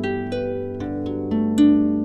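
Background music: an instrumental passage of plucked notes, a few a second, each starting sharply and ringing on, over a steady low tone.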